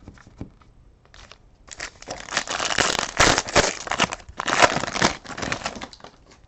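Crinkling and tearing of a trading-card pack's foil wrapper as it is ripped open and handled, for about four seconds from just under two seconds in.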